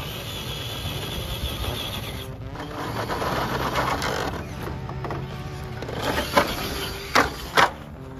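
Radio-controlled Traxxas TRX-4 crawler's electric motor whining as it drives over the crushed cars, followed by three sharp knocks in the last two seconds as the truck tumbles and lands upside down.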